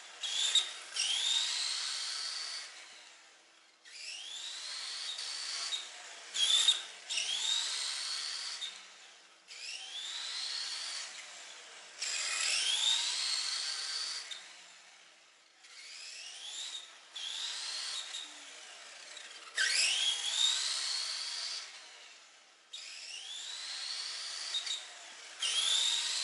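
Tamiya TT-01 RC car's electric motor and gear drive whining in repeated bursts as the car accelerates and lets off: each burst rises in pitch, then drops away as it coasts. It has a squeaky 'kyu-kyu' note that the owner dislikes and wishes were smoother.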